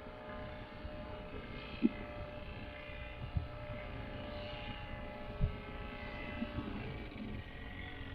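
Paramotor's small two-stroke engine and propeller running steadily in flight, a droning engine note with its overtones. A few short low thumps break in about two, three and a half and five and a half seconds in.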